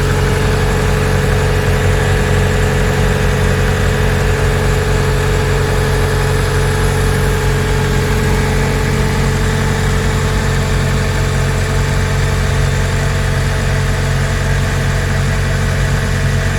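Nissan Serena C23 engine idling steadily with a rough 'krotok-krotok' rattle, the noise the mechanic is tracking down.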